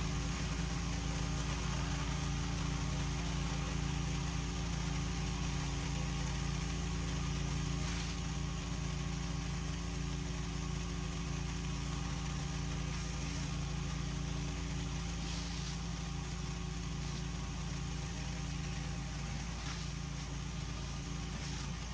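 Pressure washer's engine running steadily, with the hiss of high-pressure water spraying.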